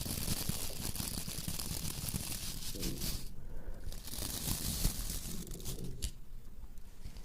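Close-miked crinkling and rustling that stops briefly twice, about three seconds in and again near the end. Low stomach growling rumbles underneath.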